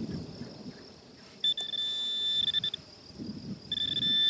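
Handheld metal-detector pinpointer sounding a steady high beep as it is probed into a dug hole, signalling metal in the loose soil near its tip. The beep comes twice, once about a second and a half in for just over a second, and again from near the end, with soft scrapes of soil between.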